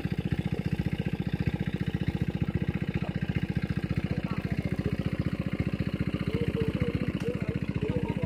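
A small engine running steadily with an even low chugging of about ten beats a second.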